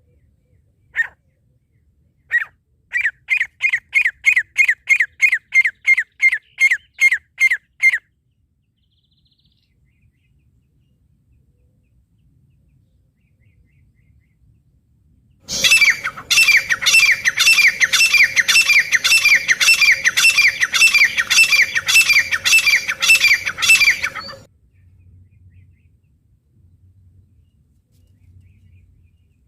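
Francolin (teetar) calling: a few single notes, then a quick run of about sixteen repeated notes, roughly three a second. After a pause of several seconds comes a louder, harsher run of repeated notes lasting about nine seconds.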